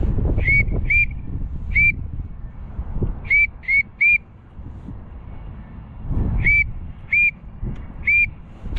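Wigeon whistle duck call blown in short, rising peeps: nine notes in groups of two, one, three and three, calling to passing wigeon and pintail. Wind rumbles on the microphone underneath.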